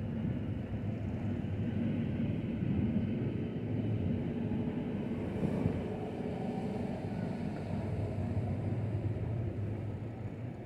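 Steady low rumble of distant city traffic, with no single event standing out.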